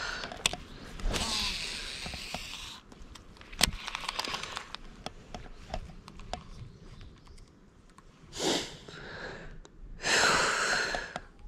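A man's heavy breathing close to the microphone, about four long breaths a few seconds apart, as he catches his breath; a few sharp clicks fall between the breaths.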